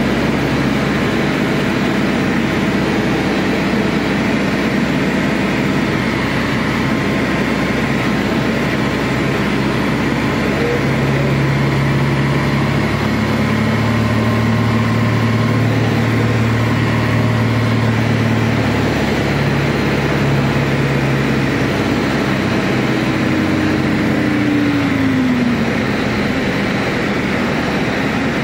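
Light aircraft's piston engine and propeller running steadily. Near the end one tone in the drone drops in pitch.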